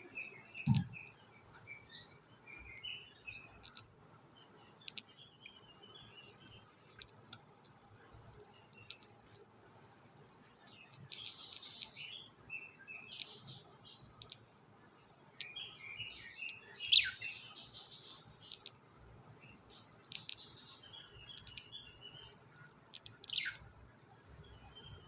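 Budgerigars chirping softly in short twittering bursts, with many small sharp clicks from their seed eating. Two louder calls sweep quickly downward in pitch, one past the middle and one near the end, and a dull thump comes about a second in.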